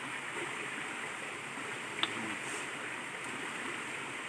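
Steady rush of flowing stream water, with one short sharp click about two seconds in.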